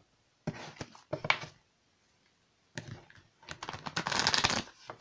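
A deck of oracle cards being handled and shuffled: a few light taps, a short pause, then a quick run of card clicks and rustle, loudest near the end.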